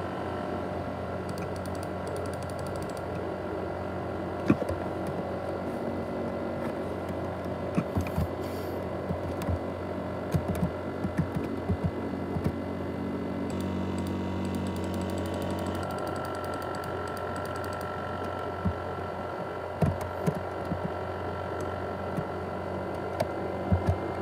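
ASUS X543UA laptop's cooling fan running with a steady whir and a few fixed whining tones, the jet-engine-like noise of the broken-down laptop. Irregular sharp clicks and taps sound over it.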